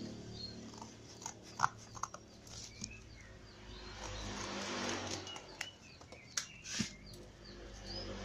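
Corrugated cardboard being handled and folded: rustling scrapes and a few sharp knocks, the loudest about a second and a half in and near the end. Small birds chirp now and then in the background.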